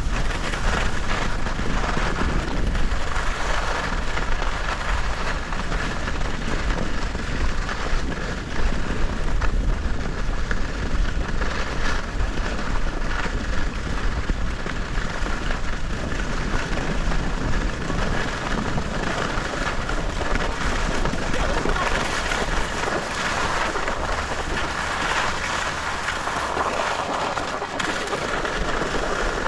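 Steady rushing noise of skis sliding over snow, with wind buffeting the microphone.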